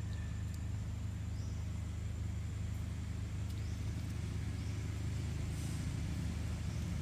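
Steady low outdoor rumble, with a few faint short rising chirps, a thin high whine and occasional faint clicks.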